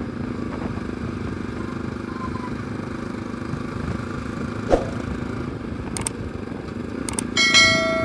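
Bajaj Pulsar NS200 motorcycle being ridden, the engine running steadily under road and wind noise, with a few light clicks. Near the end a short, loud, steady beep cuts in.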